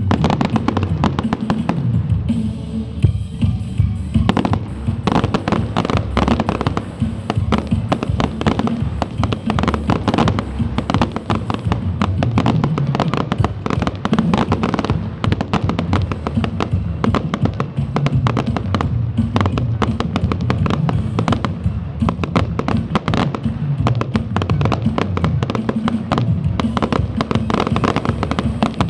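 Fireworks display: a rapid, near-continuous barrage of bangs and crackles that thickens about five seconds in, with music playing underneath.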